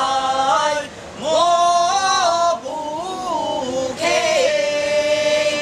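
A voice singing a Taoist deity-invocation chant in slow, drawn-out sung phrases, the last held as one long steady note.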